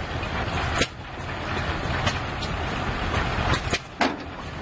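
Antique belt-driven log splitter running with a steady mechanical rumble. Its splitting head comes down on log rounds, giving several sharp cracks as the wood splits.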